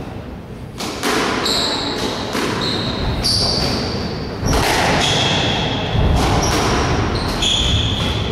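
Squash rally: the ball struck by rackets and smacking off the walls in a string of sharp hits, about one every half second to a second, with shoes squeaking briefly on the wooden court floor between shots.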